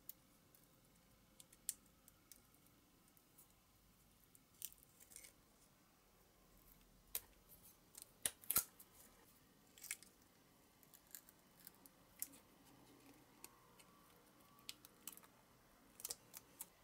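Faint, scattered clicks and taps of steel tweezers and a small clear plastic model windshield being handled, with the loudest cluster of clicks about eight seconds in.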